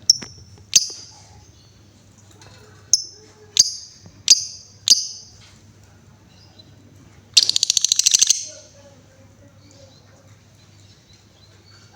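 Female lovebird calling: six short, sharp chirps spaced over about five seconds, then a rapid rattling trill lasting about a second.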